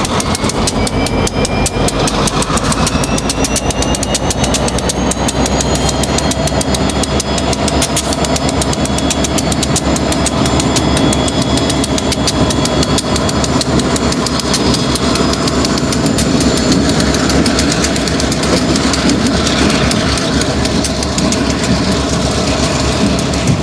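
Two diesel-electric freight locomotives running as they pull away, with a whine that rises in pitch as they gather speed.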